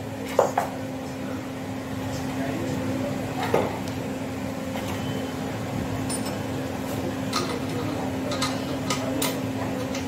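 Refrigerator compressor humming steadily while refrigerant gas is being charged, with a few light metallic clinks and taps from the charging hose and tools being handled, most of them in the second half.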